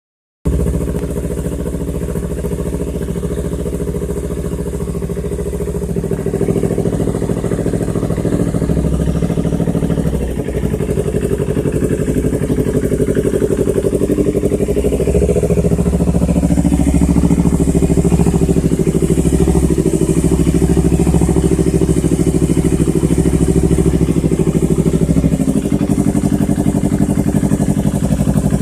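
Yamaha R25/R3 parallel-twin engine running at a steady idle through an aftermarket Proliner exhaust with the baffle removed. It gets slightly louder in small steps, with no sharp revs.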